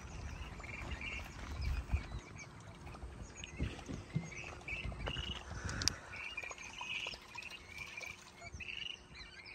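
Birds chirping over and over in short, high bursts. Low knocks and rustles come during the first half, and a single sharp click just before the middle.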